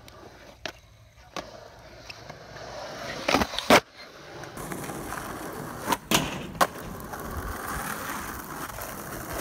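Skateboard wheels rolling on concrete and asphalt, the rumble louder in the second half. The rolling is broken by sharp clacks of the board: a loud pair just before halfway and three more in quick succession about two-thirds through.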